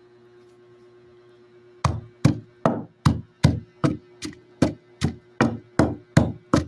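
Pestle pounding herb leaves in a wooden lusong mortar, crushing them for their juice. Steady strikes at about two and a half a second begin about two seconds in.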